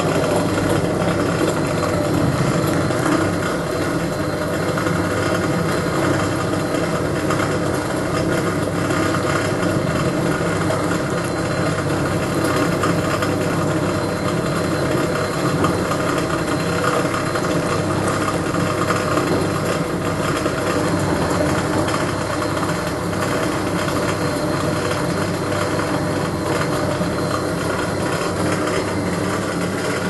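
Hoover W3590 single-tub washing machine running its wash: the electric motor hums steadily while the side-wall pulsator churns the sudsy whites in the tub.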